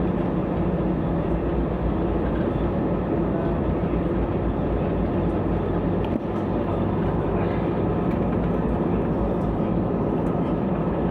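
Steady engine drone and rushing noise inside an AirAsia airliner's passenger cabin, with a constant low hum.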